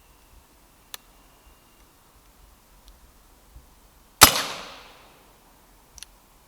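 A single shot from a Brocock Ranger XR pre-charged pneumatic air rifle: one sharp crack about four seconds in that rings away over half a second. A few faint clicks come before and after it.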